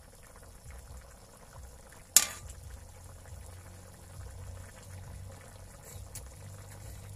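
A wok of chicken stew in pork-and-beans sauce boiling steadily with a bubbling sound, and a single sharp knock about two seconds in.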